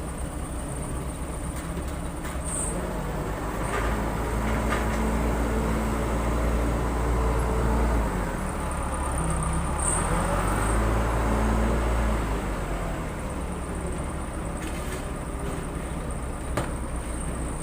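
Case 580 Super L backhoe loader's diesel engine running and revving up under hydraulic load twice, about four and ten seconds in, then settling back. A few sharp knocks come through, one near the end.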